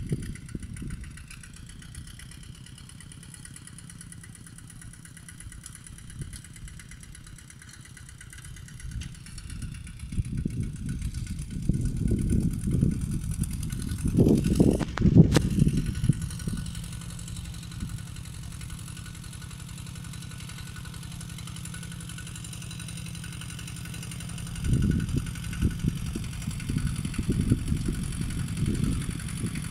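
Kubota two-wheel walk-behind tractor's single-cylinder diesel engine running steadily under load while tilling, its hum swelling louder about halfway through and again near the end as it comes close.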